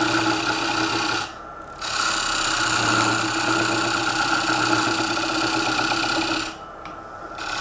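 A turning tool cutting into a spinning ash bowl blank on a Record Power Coronet Herald lathe: a steady, loud rasp of shavings being peeled off over the lathe's running tone. The cutting breaks off briefly twice, about a second in and near the end.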